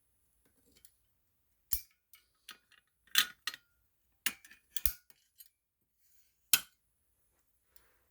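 Potter fire alarm pull station being reset by hand: sharp metal clicks and clacks, about half a dozen at irregular intervals, with quiet between.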